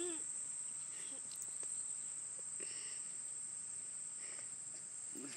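Insects trilling in one steady, unbroken high-pitched tone, with a few faint, short voice sounds.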